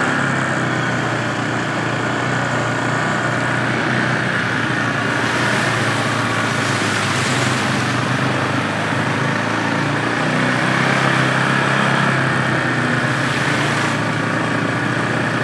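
ATV engines running steadily on a dirt trail, mostly the rider's own quad, with wind and tyre hiss over it.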